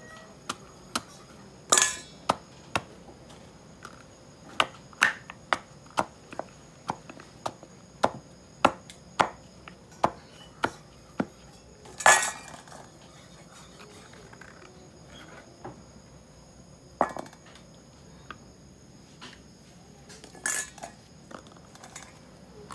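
Wooden pestle pounding fried green plantain in a wooden mortar (pilón): a run of sharp knocks, roughly two a second through the middle, with a few louder knocks along the way.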